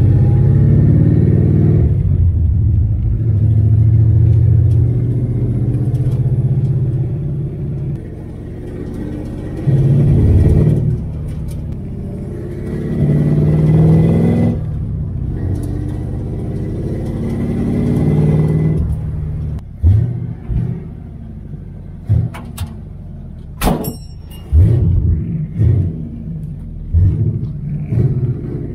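Carbureted V8 of a 1978 Mustang II Mach 1, heard from inside the cabin while driving, the engine note swelling and easing off several times as it accelerates. In the last part it drops lower, with a series of short thumps and one sharp click.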